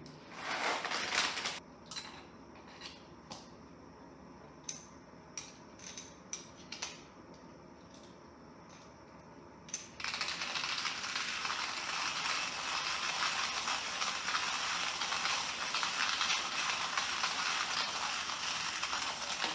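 Coffee beans rattling as they are poured from a bag into a stainless hand coffee grinder, then a few light clicks and knocks as it is handled. About halfway through the grinder is cranked steadily, crunching the beans.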